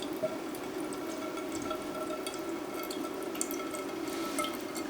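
Water running and dripping from a newly plumbed PPR pipe outlet as the freshly filled cold-water line delivers water, with small scattered drips and spatters over a steady flow.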